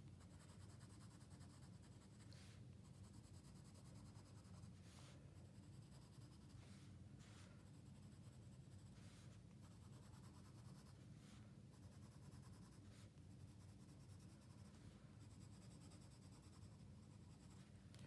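Faint scratching of a colored pencil shading on sketchbook paper in short, irregular strokes, over a low steady hum.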